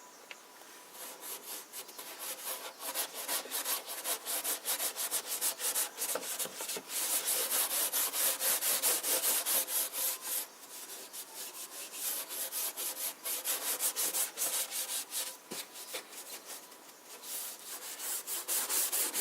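00 steel wool scrubbing boiled linseed oil into the old shellac-finished wooden cabinet in quick back-and-forth strokes, a rhythmic scratchy rubbing. It starts about a second in, eases off for a short while in the middle and picks up again near the end.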